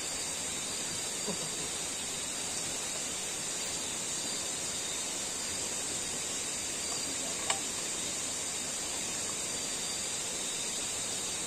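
Night forest insects chirring: a steady, unbroken high-pitched hiss with a faint click about seven and a half seconds in.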